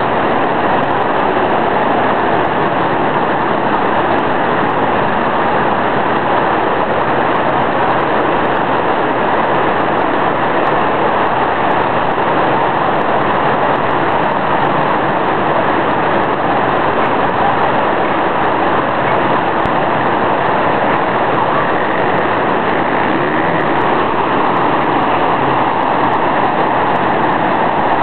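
Flash flood: a torrent of muddy water rushing down a street, a loud, steady, unbroken rush.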